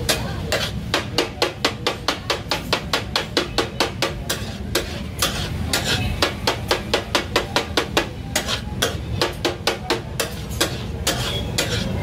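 Metal spatula blades striking a large flat metal griddle (tawa) in a fast rhythmic clatter, about four or five strikes a second with brief pauses, as taka tak meat is chopped on the hot surface.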